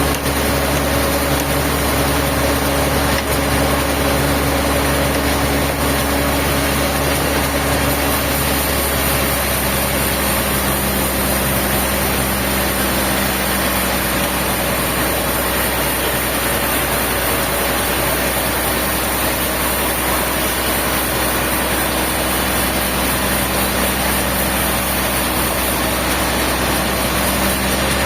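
A machine engine running steadily, its low note shifting about eight seconds in.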